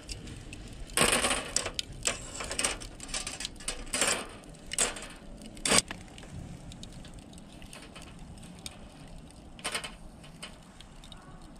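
Metal clinking and rattling as a wire grill net is set onto a steel charcoal fire stand, a cluster of sharp clinks over the first several seconds, then one more click later on.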